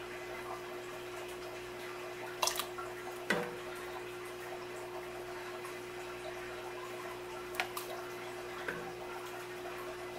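A red plastic ladle knocks a few times against the enamelled pot and the canning funnel while hot relish is spooned into jars, with faint liquid drips over a steady hum.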